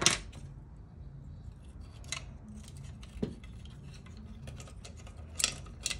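Small plastic sensor part and a fuser unit's sheet-metal frame clicking and clattering as the part is handled and fitted back. A sharp click comes at the start, then a few lighter clicks about two seconds in, around three seconds and twice near the end.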